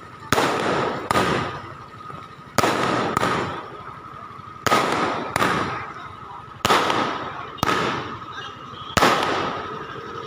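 Firecrackers going off: about nine loud bangs, mostly in pairs roughly two seconds apart, each fading out over about a second. A steady high tone runs underneath.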